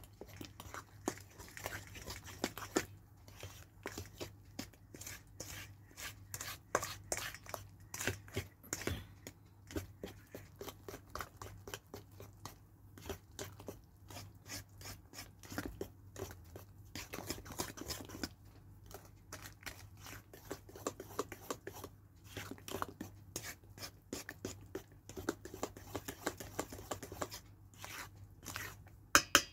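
Fork beating a thick banana cake batter in a stainless steel bowl: a steady run of quick clicks and scrapes of metal on metal mixed with wet stirring, with a couple of louder knocks against the bowl near the end.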